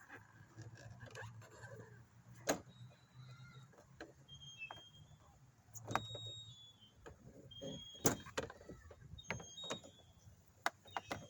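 Scattered light clicks, taps and scrapes of plastic lockout tools and an air wedge working at a car door, with a few sharper knocks among them.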